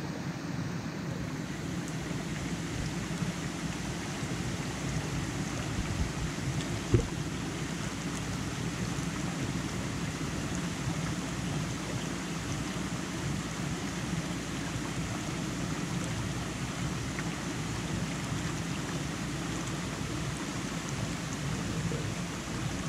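Shallow rocky stream flowing steadily over stones, a continuous rush of water. A single sharp knock about seven seconds in.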